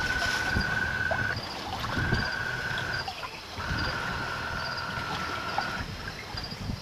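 Wind and sea rushing past a small yacht under sail. Over it, a steady high whine sounds three times, each time for one to two seconds.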